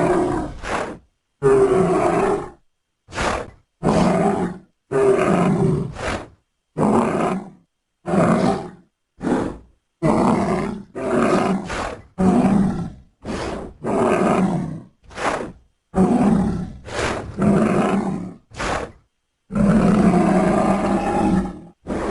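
A string of about twenty short creature roars and growls, edited back to back, each cut off sharply with dead silence between.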